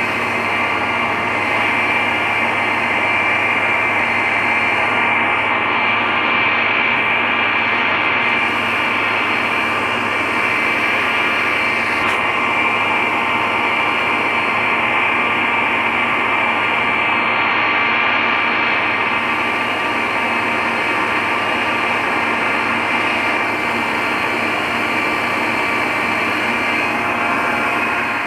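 Two planetary stand mixers, an Arno Super Chef 750 W and a Walita RI7922 800 W, running together at top speed, their balloon whisks beating cooked egg whites and sugar into meringue close to stiff peaks. A loud, steady motor whine with a high tone over it.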